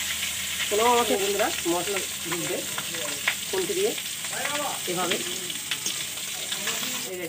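Boiled eggs coated in turmeric sizzling in hot oil in a kadai, with a metal spatula clicking and scraping as they are turned. Brief pitched sounds, like voices in the background, come and go over the sizzle.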